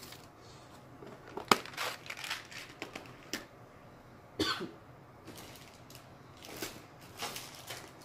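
Craft supplies being handled: a roll of plastic rhinestone mesh ribbon and a plastic organizer box rustling and crinkling, with scattered sharp clicks and taps. The loudest click comes about one and a half seconds in.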